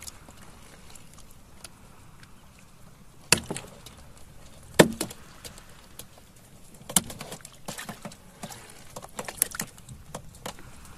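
Sharp knocks and thuds against the wooden fishing boat while a caught sea snake that is still moving is being killed. Two loud strikes come about three and five seconds in, then a run of lighter, irregular knocks and clicks.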